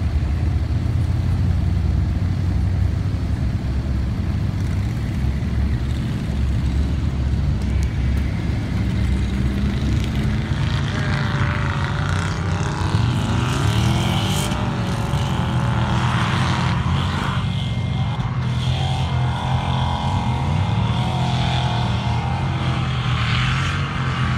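Engines running on a sand dune: a steady low engine drone, then from about ten seconds in an engine revving up and falling back several times as a lifted 2500HD pickup truck climbs a steep sand hill under heavy load.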